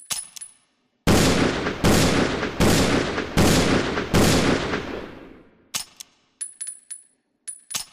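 Magnum revolver firing five loud shots in steady succession, a little under a second apart, each with a long echoing tail. Before and after the shots come short metallic clicks with a high ring.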